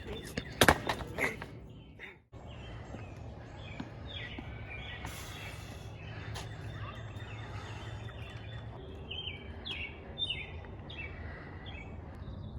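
A few sharp knocks about a second in, then, after a brief dropout, steady background noise with birds chirping repeatedly.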